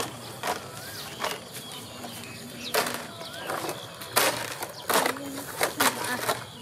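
Short bursts of dry rustling and crackling from fan-palm fronds being handled, with a few brief children's calls.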